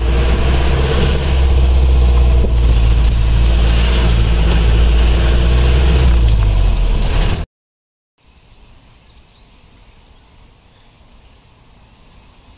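Jeep engine running during a ride, with heavy wind and road noise on the microphone. It cuts off suddenly about seven and a half seconds in, leaving a faint, quiet outdoor background.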